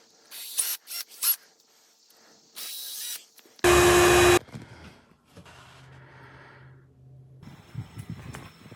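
Several short hissing bursts. The loudest lasts under a second, about three and a half seconds in, and is followed by a faint low hum and light rustling.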